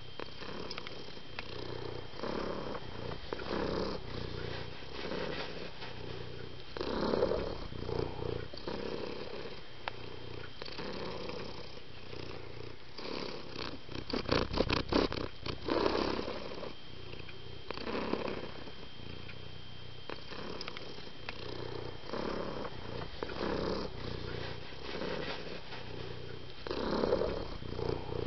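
Domestic cat purring steadily, the purr swelling and fading about once a second. A quick run of clicks cuts in about halfway through.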